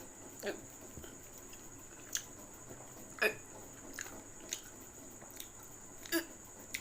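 Person chewing food with close-up wet mouth clicks and smacks, about eight sharp ones at irregular intervals. A faint steady high whine runs behind them.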